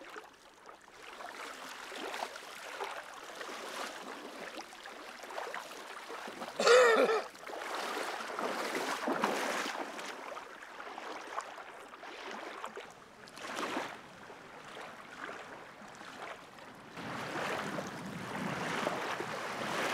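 Shallow lake water sloshing and splashing as people in waders move through it and handle a carp and a wet weigh sling in the water. A short, loud voice-like cry about seven seconds in.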